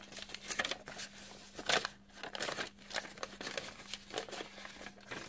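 Coffee-dyed paper rustling and crinkling as it is handled, unfolded and refolded from an envelope, in short irregular bursts with a louder crinkle about a second and a half in.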